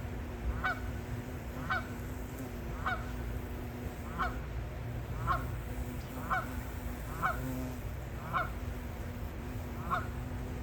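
Geese honking: a regular series of short, slightly falling honks, about one a second.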